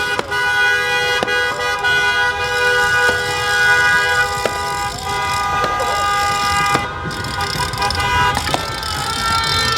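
Many car horns honking at once in a celebration, several steady tones of different pitches overlapping and held without a break, with voices shouting over them now and then.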